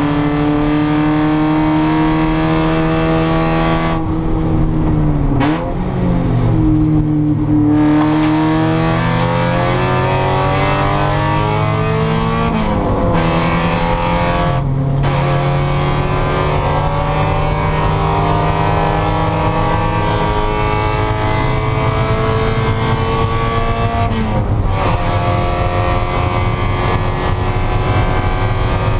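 Spec Miata race car engine at full throttle on track, revving up through the gears. It lifts and the pitch drops a few seconds in, then it climbs steadily with upshifts about halfway through and again near the end.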